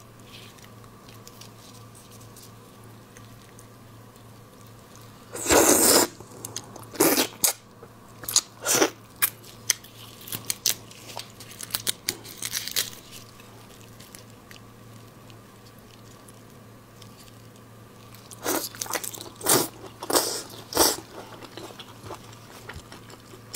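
Raw red prawns being shelled and eaten close to a clip-on microphone: sharp crunches and crackles of shell in clusters, starting about five seconds in and again near the end, with chewing.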